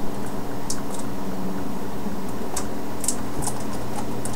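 Steady background hum, with scattered faint crinkles and clicks from a DVD case's packaging being worked off by hand.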